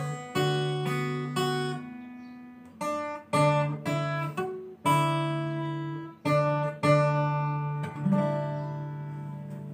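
Acoustic guitar played fingerstyle: chords and single notes plucked and left to ring, each new one coming half a second to a second and a half after the last, with the final chord ringing out and fading near the end.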